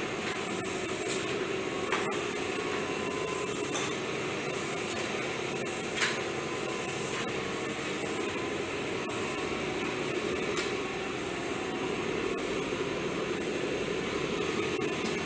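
Steady hissing and humming noise from running workshop equipment, with a few light knocks about one, two and six seconds in.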